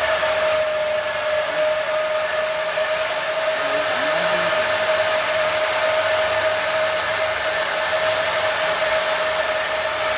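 Cayken KCY-100/3WDO magnetic drill running: a steady motor whine over a dense mechanical noise, dipping slightly in pitch near the end.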